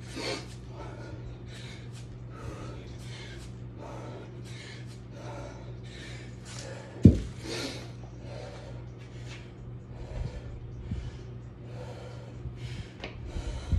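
A man breathing hard and fast from the exertion of heavy kettlebell swings, forceful breaths in a steady rhythm. A single heavy thud about seven seconds in, the loudest sound, as the 53 lb kettlebell is set down on the floor.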